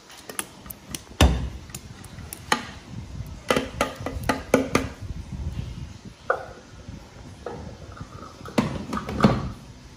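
A spatula scraping and knocking against a glass bowl as thick green herb sauce is poured and scraped into it. The taps and clunks come at uneven intervals, with the sharpest about a second in and again near the end.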